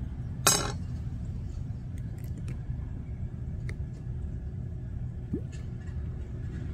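Steady low rumble, with a short clatter about half a second in and a few light plastic clicks as an AeroPress plunger is fitted onto its brewing chamber.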